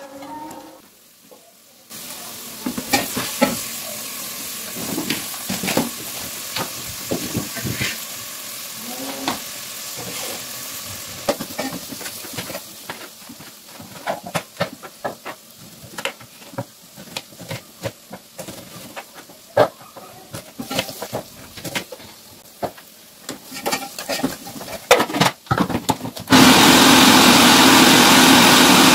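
Food sizzling in a pan on a gas stove, with quick knife cuts on a cutting board through much of the time. Near the end an electric food processor starts and runs loudly for a few seconds.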